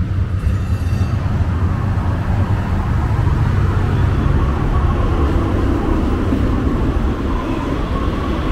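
Muni Metro light-rail train pulling into the platform: a loud, steady low rumble, with a steady whine coming in about five seconds in and a higher tone near the end as it slows alongside.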